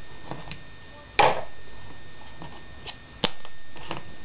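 Toys knocking together as they are handled: a loud knock about a second in, a sharp click about three seconds in, and a few lighter taps between.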